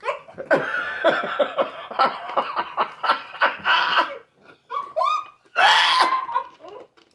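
People laughing hard in rapid bursts, with a louder breathy outburst about six seconds in.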